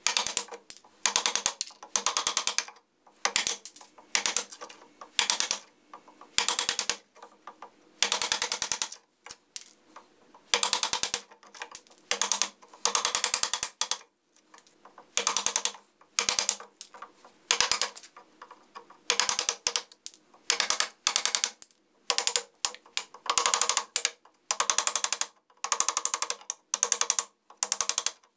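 Hand chisel paring and slicing oak from the end of a branch leg: a series of short crackling, scraping cuts, about one a second.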